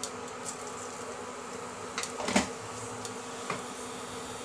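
Cumin seeds sizzling in hot oil in a non-stick pan, with a few scattered pops, the strongest a little after two seconds, over the steady electrical buzz of an induction cooktop.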